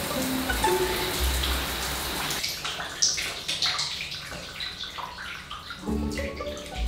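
Shower water hissing and splashing onto a person in a tiled shower stall. The hiss thins about two and a half seconds in, leaving scattered drips and splashes.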